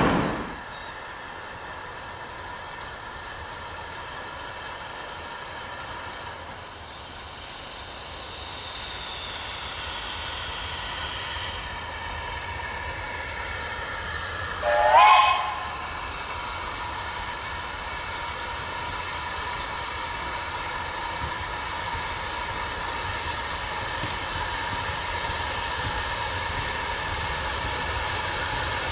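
Steam locomotive approaching with a steady hiss of steam, its whistle sounding once, briefly, about halfway through, rising in pitch as it opens: the loudest sound. The train grows slowly louder as it nears, after loud train noise cuts off in the first half-second.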